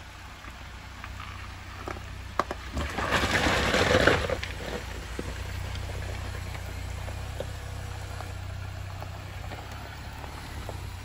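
2021 Jeep Gladiator Willys crawling slowly over a rocky trail: a steady low engine hum, with stones clicking and crunching under the tyres. A louder rush of noise comes about three seconds in and lasts about a second.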